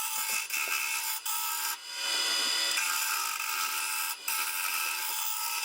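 Wood lathe spinning a square maple blank while a turning tool roughs it down to a round cylinder: a steady scraping hiss of the tool cutting wood, over a faint steady whine. It drops out briefly about four times.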